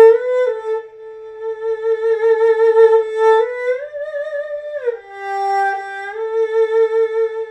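Solo erhu playing a slow phrase on its inner string: long held notes with vibrato, joined by slides up and down in pitch.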